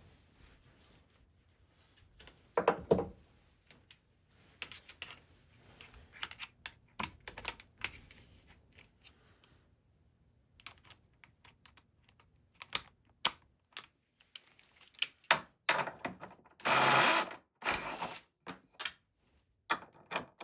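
Irregular clicks, taps and knocks of tools or hardware being handled, with a louder pair of knocks about three seconds in and a scraping rush lasting about a second near the end.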